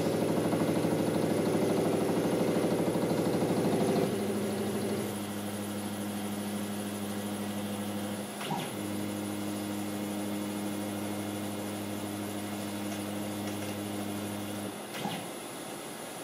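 CNC router stepper motors driving the axes through an automatic edge-probing move: a steady whine of several tones that changes pitch about four seconds in. Two short clicks come where the motion changes, about halfway and near the end. The whine stops at the second click.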